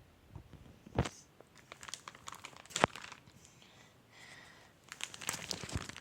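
Crinkling and rustling from something being handled, with a sharp knock about a second in, another near three seconds, and a denser run of crinkling near the end.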